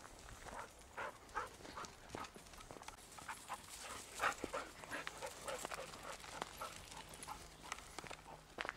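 Footsteps on a gravel path at a brisk walking pace, about two to three steps a second, with one louder step about four seconds in.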